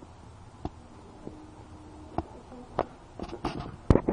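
Low steady hiss with a few scattered sharp clicks, then a quick cluster of loud clicks and knocks near the end.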